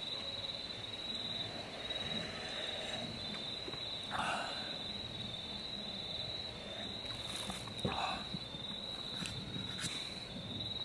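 Crickets chirping in a steady, evenly pulsing high trill, with a couple of faint knocks and rustles.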